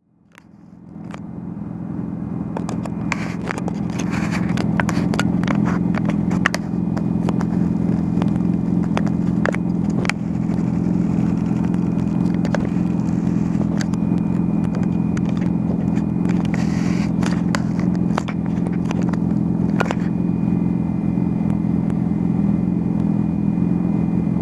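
Motorcycle engine running at a steady speed, fading in over the first couple of seconds, with scattered clicks and knocks.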